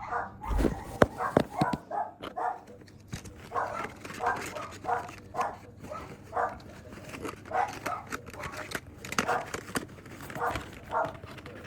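A dog barking over and over, a short bark roughly every half second, with a few sharp clicks and knocks among the barks.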